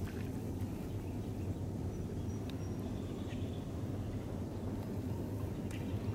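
Steady low outdoor rumble with a few faint bird chirps about two to three seconds in.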